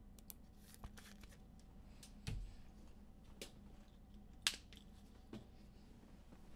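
Faint handling of trading cards and packs: scattered short clicks and rustles, the sharpest snap about four and a half seconds in.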